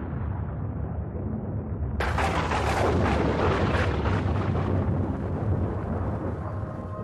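Thunder sound effect: a low rumble, then a sudden thunderclap about two seconds in that crackles and slowly fades over several seconds. Steady music notes begin near the end.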